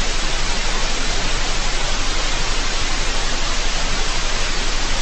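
Loud, steady electronic static hiss, like white noise.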